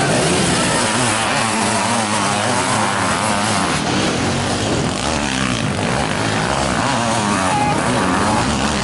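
Sidecar motocross outfits racing on a dirt track, their engines running hard with the pitch rising and falling as the throttle is worked.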